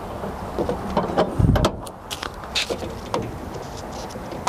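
Ford F-150 tailgate step and its fold-up handle being pulled out and set in place: a series of plastic-and-metal clicks and knocks, with a heavier clunk about a second and a half in.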